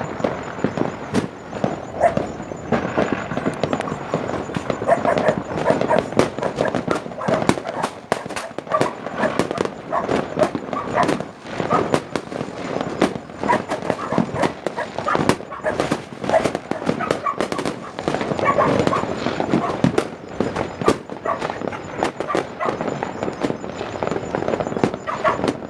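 Fireworks and firecrackers going off all around in a dense, irregular crackle of sharp bangs that never lets up.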